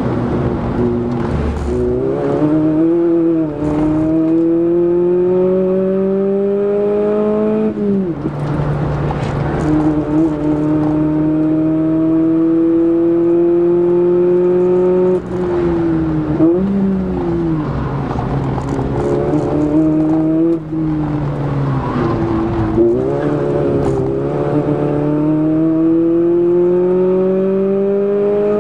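Toyota Echo's 1.5-litre four-cylinder engine pulling hard, heard from inside the cabin. The engine note climbs steadily for several seconds, then drops sharply, about four times over.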